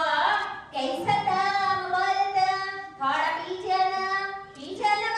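A woman singing into a microphone in long held phrases, with short breaks between them.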